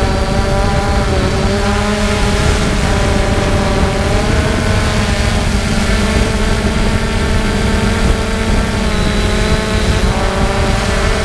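3DR Solo quadcopter's four electric motors and propellers running in flight, heard from the camera mounted on the drone itself: a loud, steady multi-toned whine over a dense rushing noise, its pitch shifting slightly now and then.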